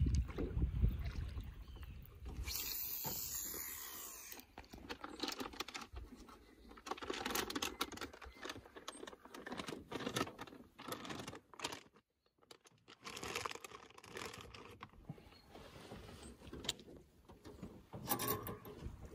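Small fishing boat on a river: scattered taps, knocks and scrapes of handling on board, with a burst of hiss a few seconds in. About a second of near silence falls just past the middle.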